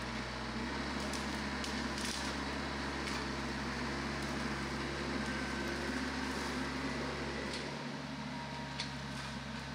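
TYM T474 tractor's diesel engine running at steady revs, with a few brief sharp clicks or snaps over it.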